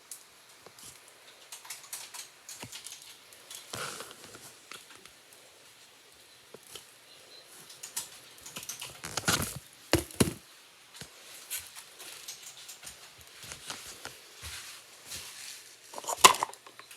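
A knife carving a bar of soap: irregular crisp scraping and cutting clicks, with louder clusters of cuts about nine to ten seconds in and again near the end.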